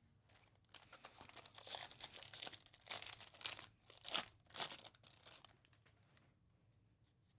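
A Topps Series 2 baseball card pack wrapper being torn open and crinkled by hand: a quick run of sharp tearing and crinkling noises that stops about three-quarters of the way through.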